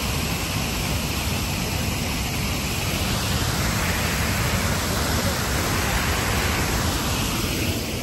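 Steady rushing roar of a waterfall. It grows louder and brighter around the middle, while the view opens onto the falls.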